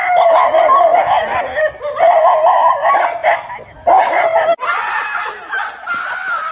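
A dog barking and yelping in quick, near-continuous strings, broken by short pauses about two and four seconds in: alarm barking at a life-size toy tiger. About four and a half seconds in, the barking cuts off suddenly.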